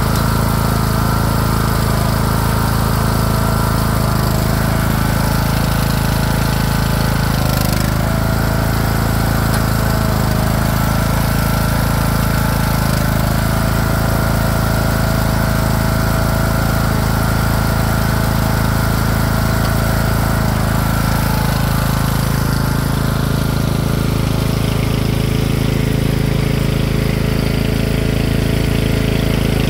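Craftsman LT3000 lawn tractor's OHV engine running steadily during a test drive.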